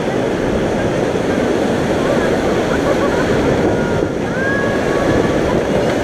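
White-water river rapids rushing and churning around an inflatable raft: a loud, steady rush of water.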